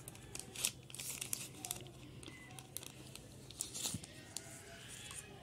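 A smart watch's white packaging sleeve being handled as its charging cable is pulled out: irregular short crackles and rustles of the wrapper, with small cable clicks.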